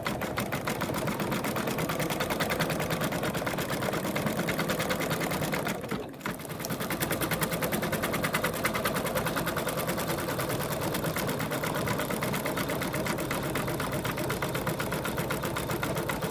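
Home embroidery machine stitching a face design with a rapid, even stitch rhythm, briefly dipping about six seconds in and then running on steadily.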